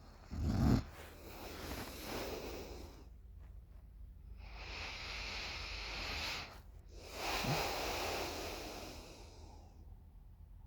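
A sleeping girl snoring in deep sleep: a short, loud low snort about half a second in, then long hissing breaths, and another low snore rasp in the middle of a breath past halfway.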